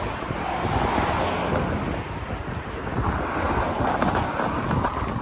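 Wind buffeting the microphone with a heavy low rumble, over road traffic whose noise swells twice as vehicles pass.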